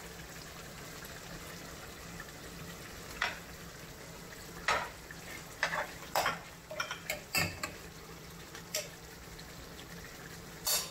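A metal spoon stirring beans into a simmering pot of braised oxtail, clinking irregularly against the pot, more often in the second half. Under the clinks there is a steady low hiss from the simmering pot.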